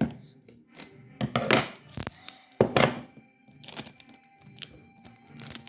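A few short thumps and rustles of paper and tape being handled on a table, over quiet background music.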